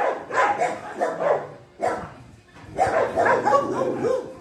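Dogs barking in quick repeated barks, about three a second, with a pause of about a second near the middle and a denser run of barking after it.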